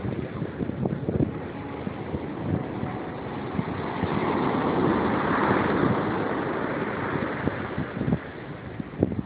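Ocean surf breaking on a sandy beach, a wave crashing and washing up the shore with the noise swelling around the middle, and wind buffeting the microphone in short gusts.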